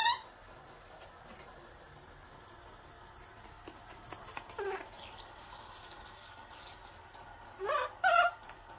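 A baby monkey giving short, high, squealing cries: one at the start, one about halfway through and two close together near the end. Under them is the soft steady hiss of a handheld shower spraying water on it.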